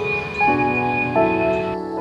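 Soft background music of sustained chords, which change about half a second in and again just after a second.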